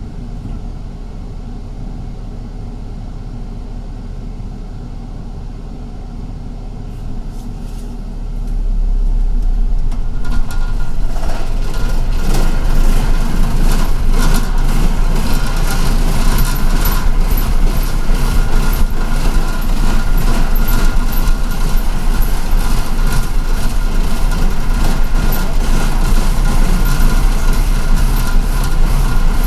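Inside a moving city bus: engine and road noise, fairly quiet at first, then much louder from about eight seconds in, with a thin steady whine and many small clicks and rattles.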